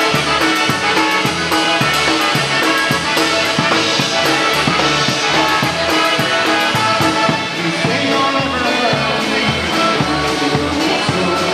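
A live polka band playing a polka: a drum kit and bass keep a steady beat of about two strokes a second under the band.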